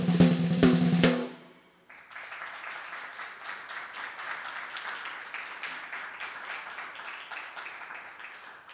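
Brass snare drum played with sticks: a few loud, ringing hits that stop about a second in, then after a short gap a fast, quieter roll that runs on and fades out near the end.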